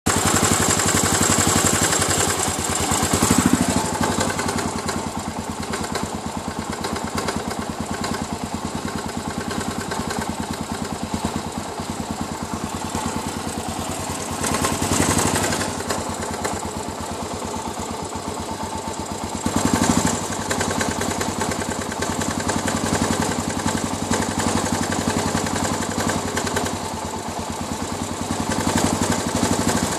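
Suzuki DR 800's big single-cylinder four-stroke engine running at idle with a rapid even pulse and a knocking noise from inside the engine, swelling louder briefly three or four times.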